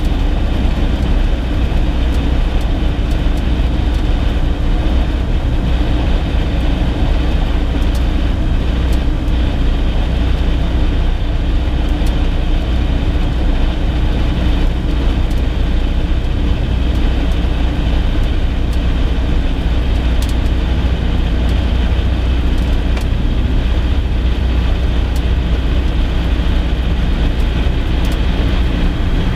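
Light aircraft's propeller engine running at low power with a steady low drone, heard from inside the cockpit while the plane rolls out and taxis after landing.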